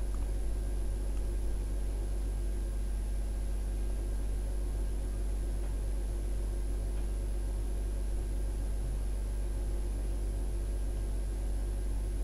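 Samsung WF9700N3W front-loading washing machine on its wool cycle with a load of blankets: a steady low hum, with no tumbling thuds or splashes standing out.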